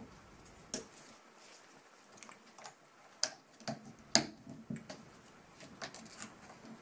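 A few sharp clicks and taps from a dog wheelchair's aluminium frame and leg-ring fittings as they are handled and fastened, the loudest about four seconds in.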